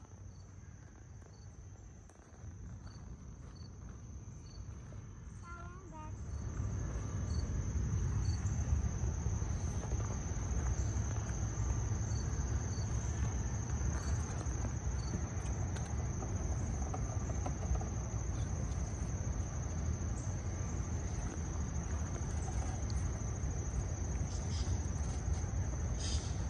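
A steady, high-pitched chorus of insects. About six seconds in, a low rumble comes in and becomes the loudest sound.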